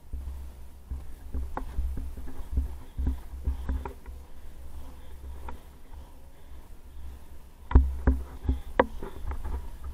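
Inline skate wheels rolling with a steady low rumble and irregular clicks and knocks, the loudest cluster of knocks near the end.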